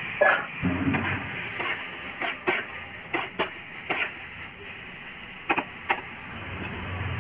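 Metal spoon knocking and scraping against a steel frying pan while stirring cauliflower florets in curry gravy: about a dozen sharp, irregular clinks over a steady low hiss.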